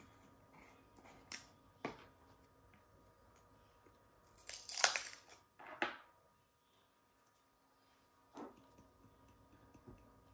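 Small plastic acrylic powder jar being opened by hand: a few light clicks as the screw lid is twisted, then a short crackling scrape about halfway through, the loudest sound, as the lid and inner sealer come away, followed by a few soft taps of handling.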